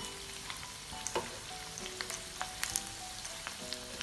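Rice-and-onion fritters deep-frying in hot coconut oil, a steady sizzle with frequent small pops and crackles, while they are turned in the pan with a metal slotted spoon.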